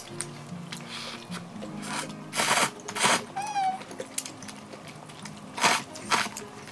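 Eating sounds at a meal table: a few short noisy bursts of slurping and chewing, over soft background music. A brief high whine with a falling end sounds about three and a half seconds in.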